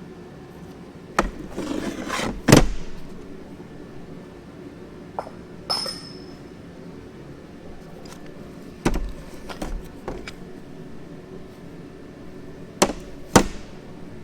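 Metal engine parts clanking and knocking as they are handled and set down, about nine irregular hits in a few clusters, one of them leaving a short metallic ring.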